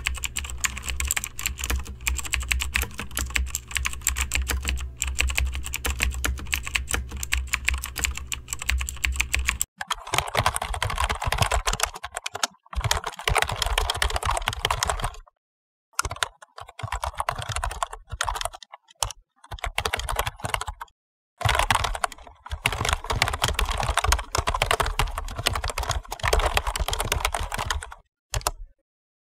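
Typing on a computer keyboard: a rapid, dense run of key clicks. For the first ten seconds a steady low hum runs under the clicks. After that the typing comes in bursts separated by short silences.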